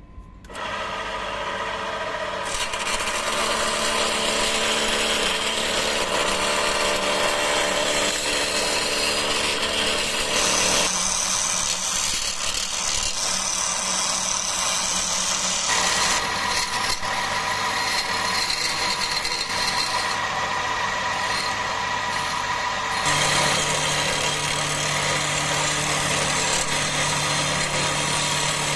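Wood lathe starting up about half a second in and running with a steady motor hum, while a turning tool cuts a wooden axe-handle blank with a continuous scraping hiss. The sound shifts abruptly several times as the cut changes.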